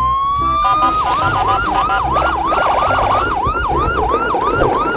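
Siren sounding: one slow rising wail in the first second, then a fast yelp that sweeps up and drops back about two and a half times a second.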